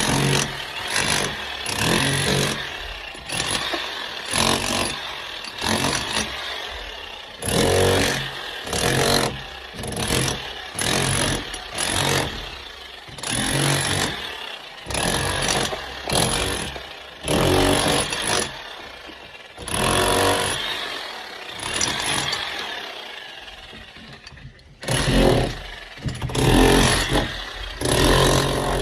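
Electric hammer chiselling in repeated short bursts with brief pauses between them, cutting a channel for plumbing pipe. It eases off briefly near the end, then runs louder again.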